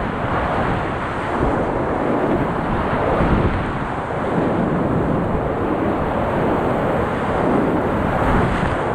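Steady, loud rush of a river in high-water flood, its whitewater rapids heard close up from the kayak, with wind buffeting the microphone.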